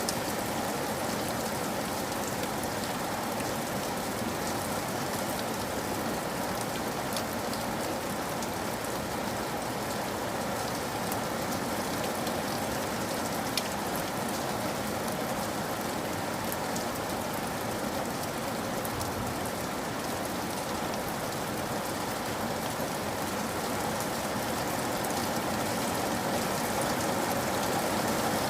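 Steady rain falling, an even hiss of water with scattered single drops ticking through it.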